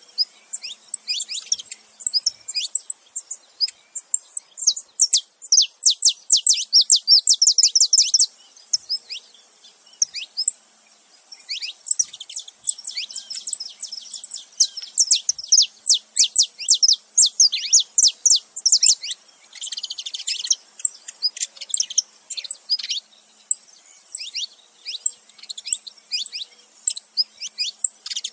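Saffron finches, a male and a female, chirping together in rapid runs of high, quick notes, densest about five to eight seconds in and again from about twelve to nineteen seconds in, with short pauses between.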